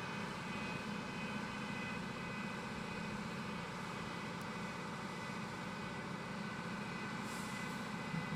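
A woodworking CNC machining center running with a steady mechanical hum and several constant whining tones.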